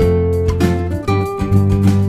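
Background music led by a plucked and strummed guitar, with chords changing every half second or so.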